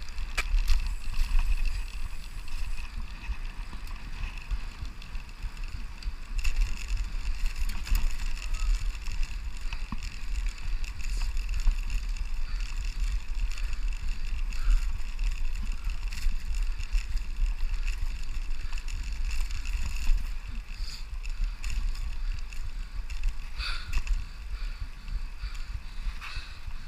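Rumble of wind on the microphone with road and tyre noise from a bicycle being ridden along a paved path, with a few light clicks and rattles, the sharpest near the end.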